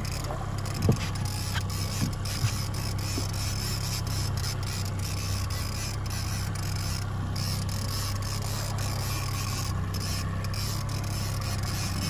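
Boat's outboard motor running steadily at trolling speed, a low even hum, with a few short knocks about a second in and again around two seconds.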